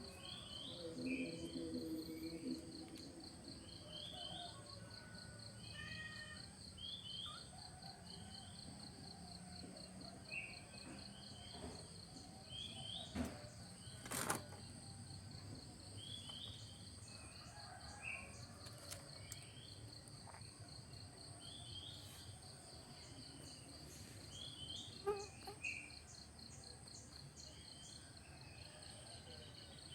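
Outdoor ambience: a steady, high pulsing insect trill, likely crickets, with short bird chirps repeating every couple of seconds over a low background rumble. One or two sharp knocks come about halfway through.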